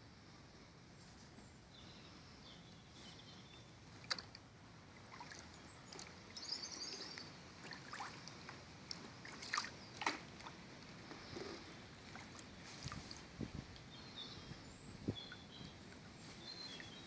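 A kayak being paddled on a river: faint water sloshing and dripping, with a few sharp knocks and clicks from the paddle and boat. Small birds chirp briefly several times.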